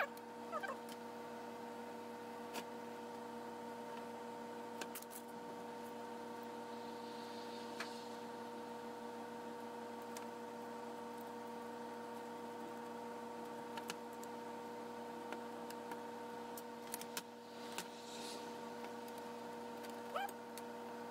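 Light clicks and taps of heater-core pipe fittings and a brass heater valve being handled and fitted on a workbench, with a few brief squeaks, over a faint steady hum of several pitches.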